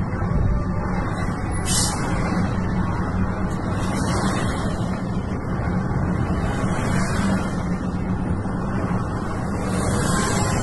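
Steady engine and road drone heard from inside a moving car driving past a column of heavy trucks, with a short high hiss about two seconds in.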